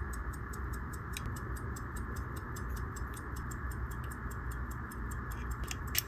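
Henry Sandoz pocket watch movement ticking steadily, rapid, even ticks of the running escapement heard close-up over a steady hum, with a slightly louder click about a second in and another near the end.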